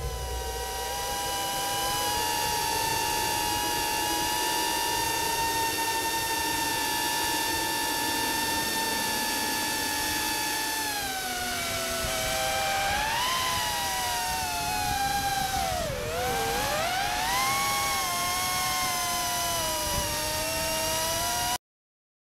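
Small FPV cinewhoop drone's motors and propellers whining at a steady high pitch. About halfway through the pitch falls, then wavers down and up several times as the throttle changes. The whine cuts off suddenly near the end.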